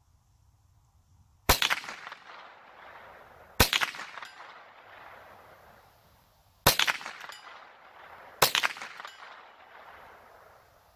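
Four single shots from a Ruger 10/22 .22 LR semi-automatic rifle, fired at an uneven pace about two to three seconds apart. Each crack is followed by a long rolling echo that dies away over a second or two.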